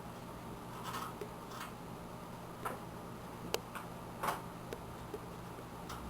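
Light, irregular clicks and taps of computer parts being handled during disassembly of a desktop system unit, about eight or nine scattered ticks with the sharpest about halfway through.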